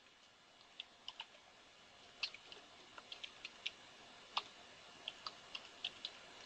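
Faint computer keyboard keystrokes: irregular single clicks, a few close together at a time, as a command is typed.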